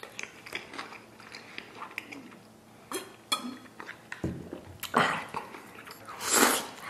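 Close-up chewing and wet mouth sounds of a man eating braised pork intestine, a piece not stewed quite tender. There is a low thump about four seconds in, and louder mouth sounds come about five seconds and six and a half seconds in.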